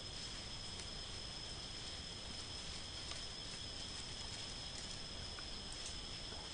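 Insects trilling in a steady, unbroken high-pitched chorus, with a few faint ticks from leaf litter and twigs.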